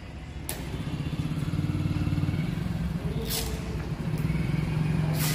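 Eicher 485 tractor's three-cylinder diesel engine idling steadily. A brief rasping noise cuts in about three seconds in.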